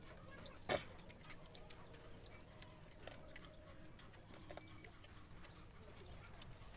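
Crispy deep-fried chicken bones handled by fingers, giving faint scattered crackles and clicks, with one louder short sound a little under a second in.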